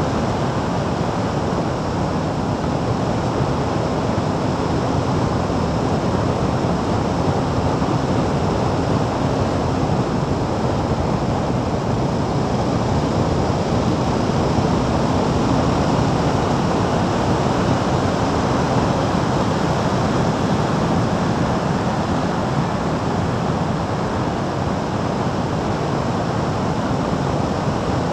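Steady wind rush over the microphone of a motorcycle-mounted action camera at road speed, with a faint, even engine hum underneath.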